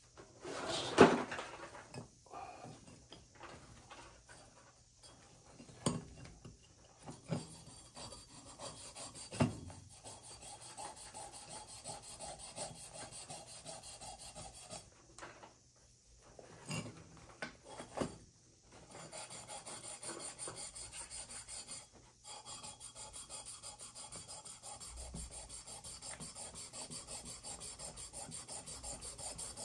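Hand scraping on copper plumbing: a few sharp knocks and clatters of tools, the loudest about a second in, then long runs of rhythmic rubbing strokes, about three or four a second, as a copper pipe fitting is worked over with an abrasive, the usual cleaning before a joint is soldered.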